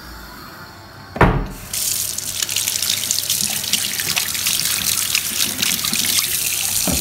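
A knock, then a kitchen mixer tap running full into a sink from about two seconds in, the stream splashing over hands being rinsed under it. It stops abruptly at the end.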